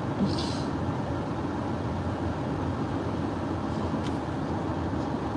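Steady low rumble of a vehicle driving, an even noise with no distinct events.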